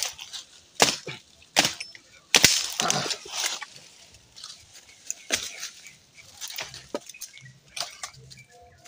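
Machete blade chopping a thin sapling: four sharp strikes on the wood in a row, under a second apart, then a few sparser ones, with some cracking of the wood.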